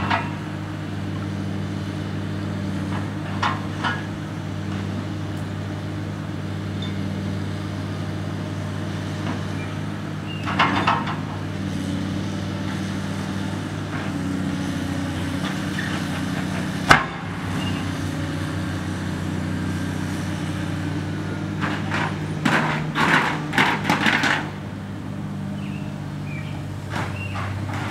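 Caterpillar hydraulic excavator's diesel engine running steadily while its bucket works through demolition debris, with scattered crashes and clanks of metal and rubble: one sharp bang about halfway through and a burst of clattering crashes later on.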